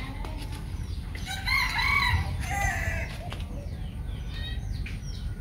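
A rooster crowing once, beginning about a second and a half in, over a steady low rumble. Fainter, shorter bird chirps follow near the end.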